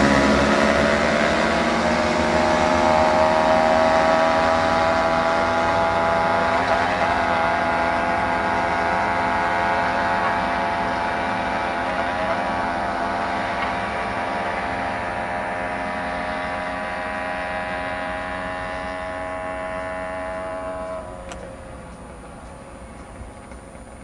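Moped engine running at full throttle in a countdown race, its note climbing slowly and steadily as speed builds. About 21 seconds in the note falls away and the sound drops sharply as the throttle is closed, followed by a single click.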